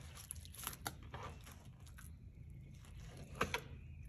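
Fillet knife slicing and scraping through fish skin and flesh on a wooden cutting board: a few short, quiet strokes, the loudest two about three and a half seconds in.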